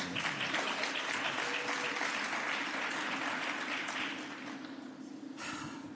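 Congregation applauding, dying away after about four seconds.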